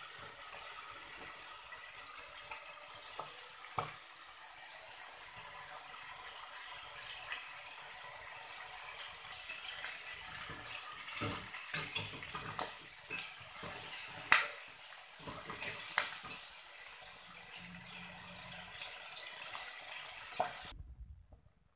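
Flour-coated chicken feet deep-frying in a stainless steel pot of hot oil: a steady sizzling hiss, with sharp knocks and pops scattered through it as the pieces are stirred with a wooden spatula and chopsticks. The sound stops abruptly near the end.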